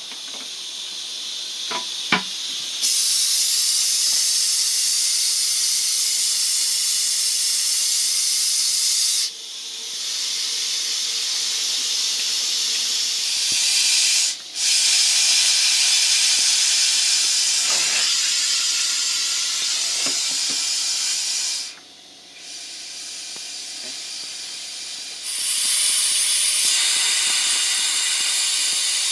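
Compressed air hissing out of a motorhome's water lines as the faucets are opened to blow the water out for winterization. The hiss comes in long stretches that swell and fall, breaking off briefly about 9, 14 and 22 seconds in, with a short click about 2 seconds in.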